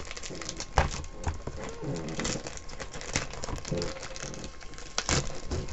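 Plastic anti-static bag crinkling and crackling as it is handled and opened, with sharp clicks about a second in and again near the end.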